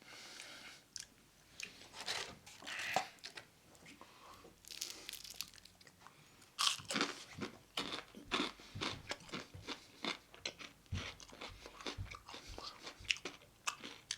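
A person biting and chewing crispy fried chicken, the breading crunching in irregular short crackles that come thick and fast in the second half.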